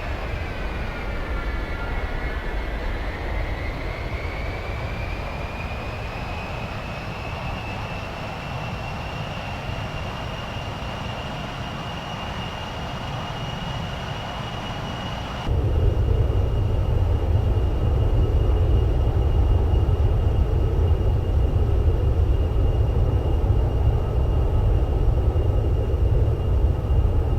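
Military jet aircraft engine: a turbine whine dips, then climbs in pitch and holds steady over a rushing rumble. About halfway the sound jumps suddenly louder, with a much heavier low rumble.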